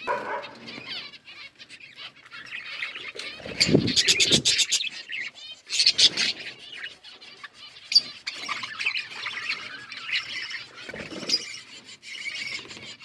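Small pet parrots chattering and twittering continuously, with sharp chirps and a run of rapid clicking sounds about four seconds in.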